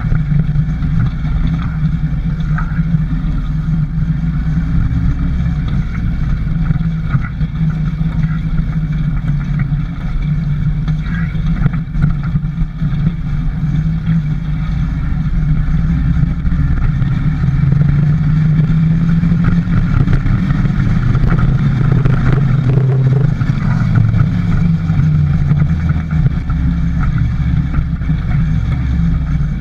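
Motorcycle engine running while riding, heard close from the handlebars, its pitch rising and falling as the throttle changes.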